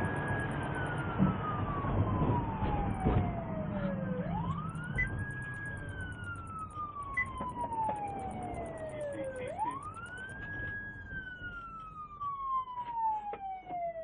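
Emergency-vehicle siren in wail mode, each cycle climbing quickly, then falling slowly over about four seconds, three cycles in all, over rumbling engine and road noise.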